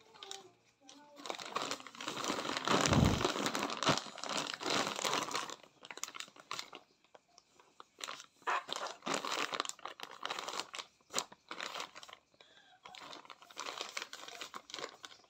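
Thin plastic packaging bag crinkling in irregular bursts as it is handled, loudest a couple of seconds in, with a dull thump about three seconds in and sparser crackles after.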